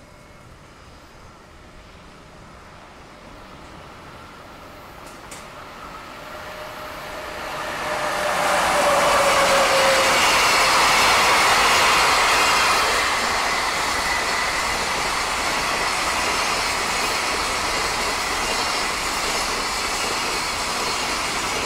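Container freight train passing behind an EF66 electric locomotive. The sound builds from faint to loud over the first eight seconds, with a brief falling tone as the locomotive goes by. After that, the long string of container flatcars rolls past with steady wheel-on-rail noise.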